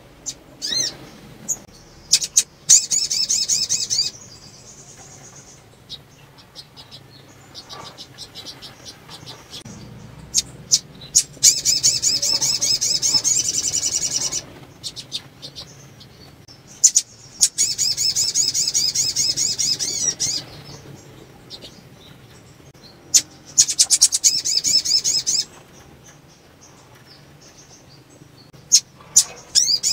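Female sunbird (sogon) giving a fast, high, twittering trill in bursts of two to three seconds, four times and a fifth starting near the end, with single sharp chip notes in between. It is the call of a female in breeding condition.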